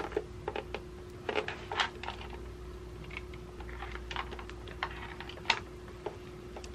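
Cables being handled and plugged into a plastic projector: scattered small clicks and taps of plugs and connectors, with one sharper click about five and a half seconds in, over a faint steady hum.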